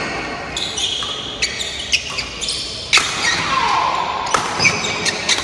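Badminton doubles rally: rackets hitting a shuttlecock several times, sharp cracks roughly a second apart, with court shoes squeaking on the wooden floor between the shots.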